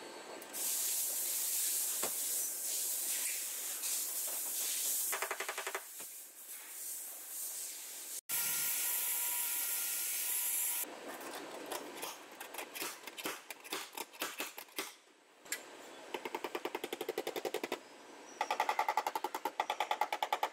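Angle grinder with a sanding disc running against the steel rear quarter panel of a Toyota Levin, stripping paint off the dent at the wheel arch, with a short break about 8 seconds in. Later come scattered clicks, then long runs of quick, even taps from a body hammer working the dented wheel-arch lip.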